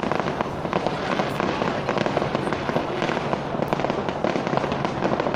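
Fireworks fired from the top of a tower, a dense continuous crackle of many small overlapping bursts.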